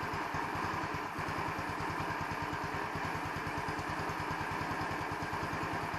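150cc Chinese scooter's single-cylinder four-stroke engine idling cold, with a steady, even, rapid putter. The owner suspects the idle mixture is not set properly, since the scooter tends to stall until it has warmed up.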